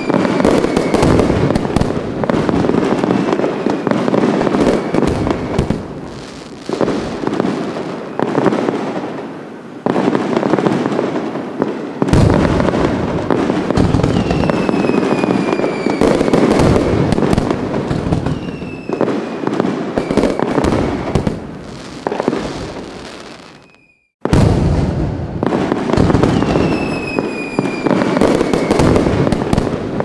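Fireworks going off in a dense, continuous barrage of crackling and popping bursts, with a few falling whistles. The sound cuts out suddenly for a moment about three-quarters of the way through, then the barrage resumes.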